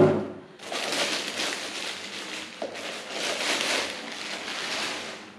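Packaging crinkling and crackling as it is handled during unboxing: a continuous rustle with no separate strokes, easing off near the end.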